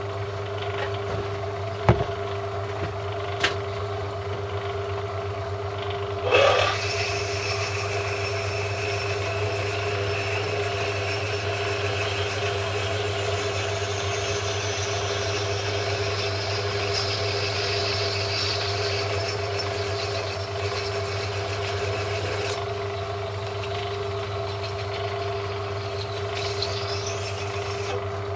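A metal lathe running steadily with its motor humming, while a drill in the collet chuck cuts into a tool steel block fed on the milling slide. A couple of sharp clicks come in the first few seconds; about six seconds in the cutting begins, a hissing, whining noise that runs until a few seconds before the end, with a brief high squeal near the end.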